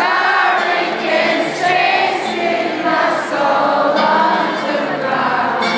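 Large concert audience singing a melody together, many voices blurred into one loud mass. An acoustic guitar starts playing at the very end.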